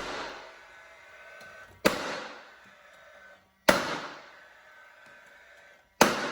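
Nail gun firing three shots about two seconds apart, fastening window trim back in place; each shot is a sharp crack with a short ring after it.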